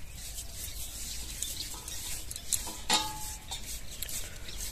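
A hand rubbing and spreading an oil-and-flour paste over a thin rolled-out paratha dough sheet: faint, soft rubbing and smearing, with one sharp click near the middle.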